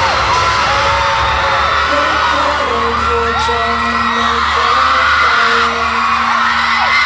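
A crowd of fans screaming and shrieking over loud music from the venue's sound system, many high voices rising and falling.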